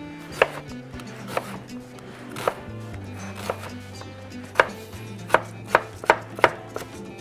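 Chef's knife dicing an onion on a wooden cutting board: sharp separate knocks of the blade on the board, about one a second at first, quickening to about three a second near the end.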